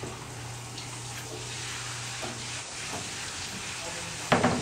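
A steady hiss under a low hum; the hum stops a little under three seconds in. Near the end comes one short, loud knock-like noise.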